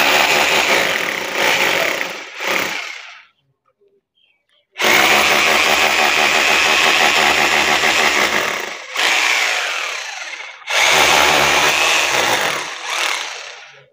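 Corded electric drill boring holes into a plastered wall, running at full speed in three spells. The first spell stops after about three seconds and is followed by a short silence. A longer second spell breaks off briefly before a third runs on until near the end.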